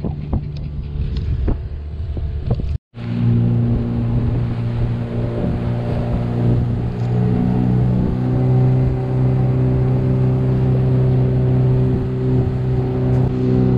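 Outboard motor pushing a small fishing boat along at speed: a steady engine drone, with wind buffeting the microphone in the first seconds. The sound cuts out briefly about three seconds in, and the engine note rises a little about halfway through.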